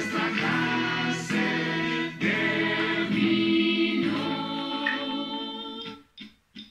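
A children's goodbye song with group singing over musical accompaniment, fading and ending about six seconds in.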